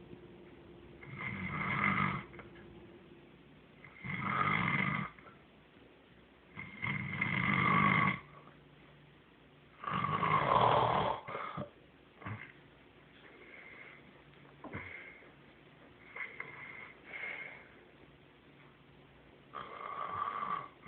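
Snoring, one long snore about every three seconds. The four in the first half are the loudest and longest, then come softer, shorter ones, and a louder snore returns near the end.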